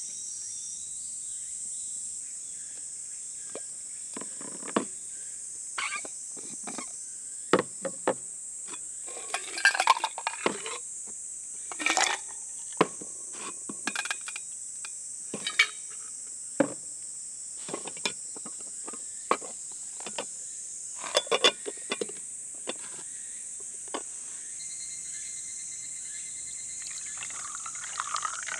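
Ice cubes clinking against a stainless steel camping cup as they are poured in and settle: scattered sharp clinks, some in quick clusters, over a steady high drone of insects.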